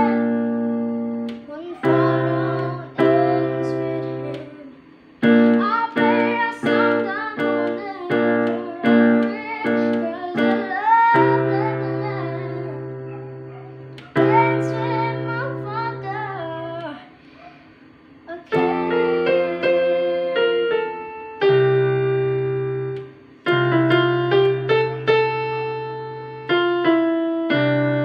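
A child singing a slow ballad to her own chords on an electronic keyboard set to a piano sound. The chords are struck and left to ring, about one every one to two seconds, with the sung melody over them.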